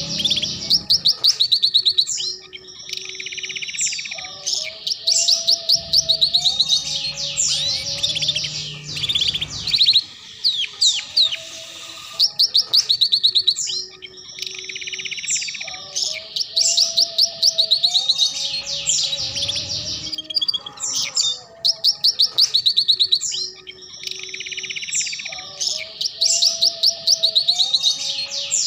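Domestic canary song: fast, high trills and chattering 'ngeriwik' phrases with some lower drawn-out notes beneath, a sequence that repeats about every ten seconds. It is a lure and tutoring song for a young canary learning to sing.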